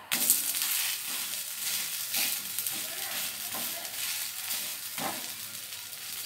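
Tapioca dosa sizzling in oil on a hot iron dosa tawa, cooking on its second side just after being flipped: a steady frying hiss, with a couple of faint spatula touches.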